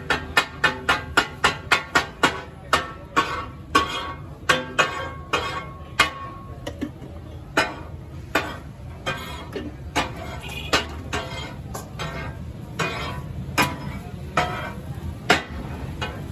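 Flat metal spatula blades chopping and clattering on a large steel tawa griddle as fish katakat is minced, the clatter the dish is named for. Quick, even strikes at about four a second at first, then after about two seconds a slower, irregular clatter, over a steady low hum.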